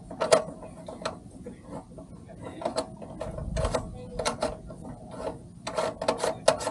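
Irregular mechanical clicks and knocks from hands working equipment on a boat deck, with a quick run of several clicks near the end.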